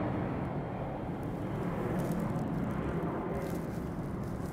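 Steady low engine rumble, even throughout, with most of its weight in the bass.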